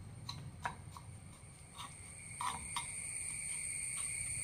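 A steel spoon scraping and clicking against a nonstick kadai as spice powders are stirred into oil, about half a dozen light clicks. From about halfway a steady high thin whine comes in and grows as the pan heats on the newly lit gas flame.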